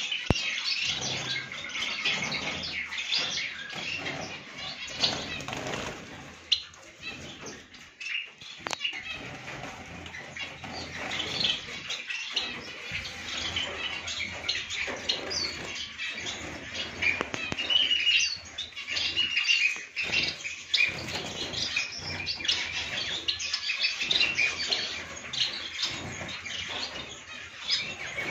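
A group of caged Bengalese finches (society finches) chirping and calling in a continuous chatter of short, high notes, with wings fluttering and rustling as they flit between perches.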